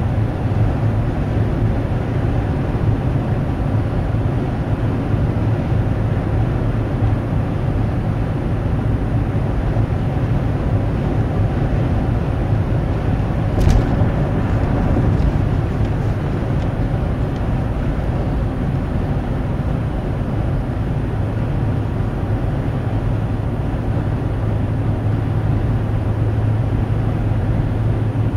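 Steady low vehicle rumble, with a single sharp click about fourteen seconds in.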